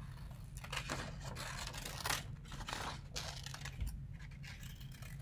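Scissors cutting through a sheet of drawing paper: a run of short, irregular snips with the paper rustling as it is turned.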